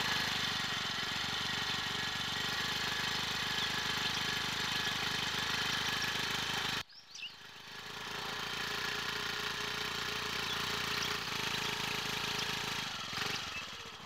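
Small motor scooter engine running steadily. It cuts off abruptly about seven seconds in, then comes back in and runs again before dying away near the end.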